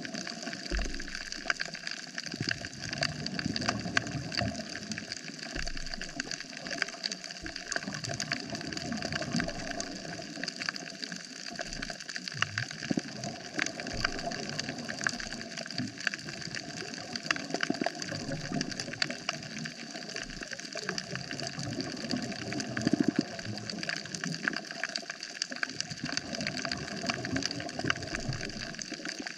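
Underwater sound on a coral reef: a steady, dense crackle of fine clicks over a wash of water noise, with a few brief low thumps near the start.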